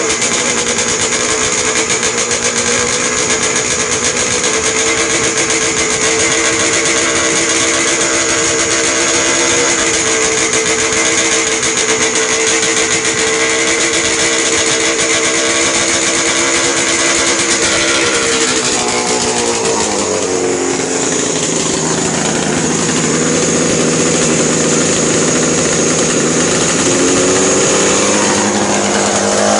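1000cc Arctic Cat engine in a hill-climb motorcycle running on a test run with a mercury-filled balancer fitted to its crankshaft to cure severe vibration. It holds steady at raised revs, drops to a lower idle about 18 seconds in, and picks up again near the end.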